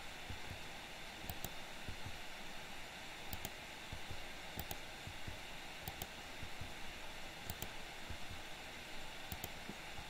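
A computer keyboard key tapped six times, one every one to two seconds, each tap a quick double click of press and release, over a steady hiss.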